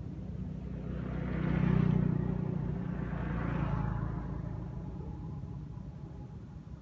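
A motor vehicle passing on the road, its engine hum and tyre noise building to a peak about two seconds in, then fading away over the next few seconds.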